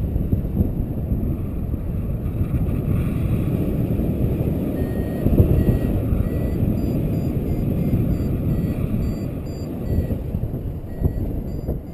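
Wind rushing over the camera's microphone in flight under a paraglider, with a variometer sounding short high beeps, about two a second, from about five seconds in: the climb tone that signals the glider is rising in lift.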